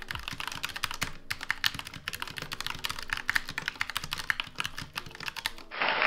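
Fast, continuous typing on a mechanical keyboard: a dense run of key clicks. Near the end the clicking stops and a short rush of hiss takes over.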